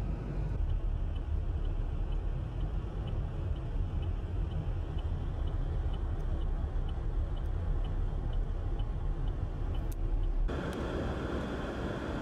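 Strong blizzard wind buffeting the microphone as a heavy, steady low rumble, with a faint, even ticking of about two a second through most of it. About ten seconds in, the sound changes abruptly to a brighter, hissier wind noise.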